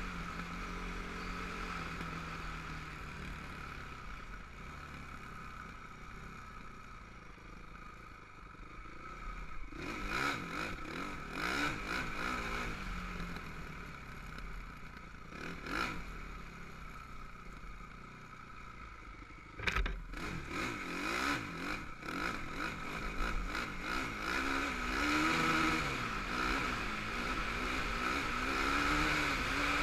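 Honda TRX450R quad's single-cylinder four-stroke engine running under way, its pitch rising and falling with the throttle. Rattles and knocks from the quad running over rough ground, with one sharp knock about twenty seconds in.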